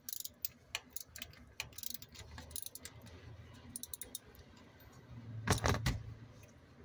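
Socket ratchet and metal tools clicking and tapping while a spark plug is loosened, with a short, louder run of rapid ratchet clicks about five and a half seconds in.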